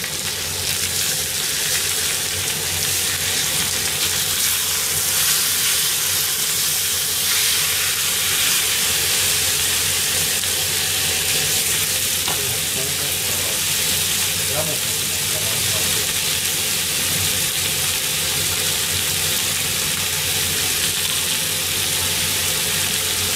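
Bone-in chicken legs and aromatic vegetables sizzling in a sukiyaki pan on the stove: a steady frying hiss.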